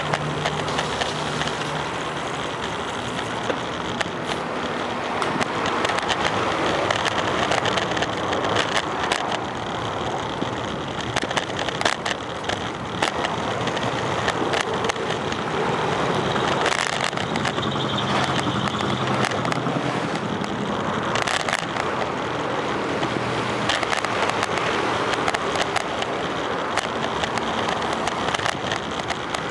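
Bicycle rolling along a paved sidewalk, heard from the saddle: a steady rush of tyre and wind noise with frequent small rattles and knocks over the paving. Road traffic and car engines run alongside.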